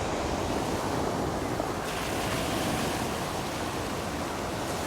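Sea waves washing on the shore, a steady surf hiss that swells about two seconds in, with wind rumbling on the microphone.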